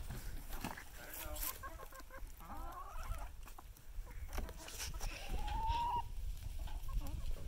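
A flock of chickens clucking and calling while foraging, with one longer, slightly rising call about three-quarters of the way through.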